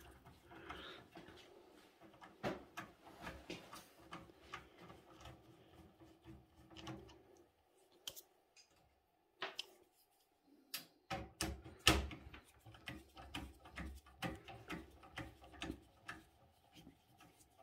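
Faint clicking and ticking of a hand screwdriver working small screws out of a desktop PC's sheet-steel chassis. It pauses for a few seconds in the middle, and a louder knock comes about twelve seconds in.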